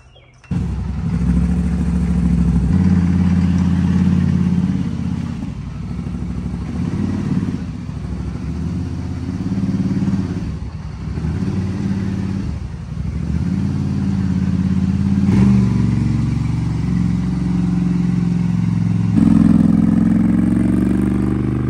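Polaris Sportsman 850 ATV engine starting up suddenly and running, its pitch falling and rising several times as the throttle is eased and opened, climbing again near the end.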